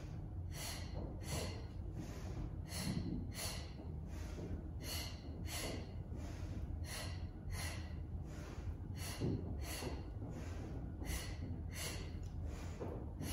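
A woman's sharp, rhythmic breaths, just under two a second, paced to the leg switches and pulses of a Pilates scissors exercise: breathing under exertion.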